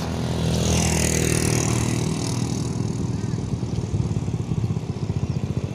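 A motor vehicle engine passing close by, loudest about a second in, then a small engine running with a steady low chugging.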